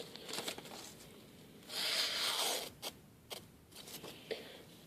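A Kershaw Thermite's 8Cr13MoV blade slicing through paper: one longer slice about two seconds in, with shorter cutting and rustling strokes before and after it. The edge catches or sticks at one spot along the blade, which the owner finds not as sharp as he wants it.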